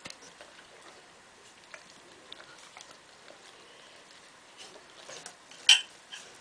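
Bernese Mountain Dog eating wet food from a plate held up to its mouth by hand: small scattered smacks, clicks and taps of mouth and fingers on the food and plate, with one louder sharp sound near the end.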